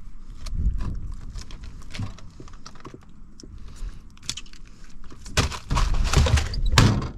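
A redfish being put into the boat's fish box: light clicks and knocks, then a loud stretch of thumping and clatter near the end.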